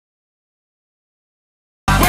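Complete silence, then music with a heavy bass cuts in abruptly right at the very end.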